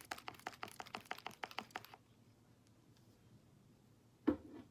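Homemade slime being squeezed and worked by hand, giving a rapid run of small sharp clicks and pops, about eight a second, that stops about two seconds in. Near the end come two louder dull knocks.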